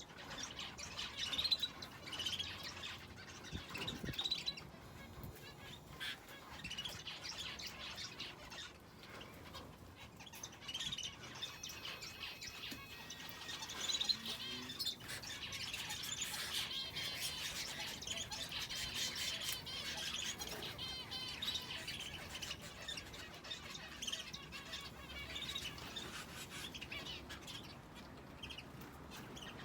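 Aviary finches and a canary chirping and twittering: a continuous stream of short, high chirps, thickening into busier twittering in the middle.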